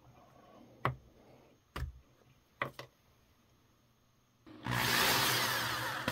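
Three light knocks as a small part is handled, then an electric drill starts suddenly and runs steadily, boring into a cured JB Weld epoxy piston slug.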